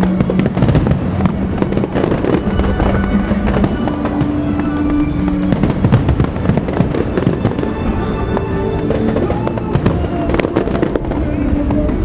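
Fireworks bursting in a dense, continuous barrage of overlapping bangs, over show music with held notes.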